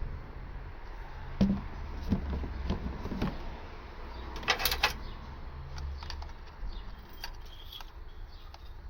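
Small handling knocks and clicks: a few dull knocks, then a quick cluster of sharp clicks about halfway through, followed by scattered light ticks.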